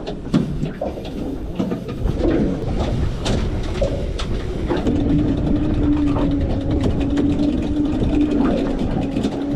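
Fishing reels being cranked in, with clicking and knocking over a low rumble. A steady hum comes in about halfway through.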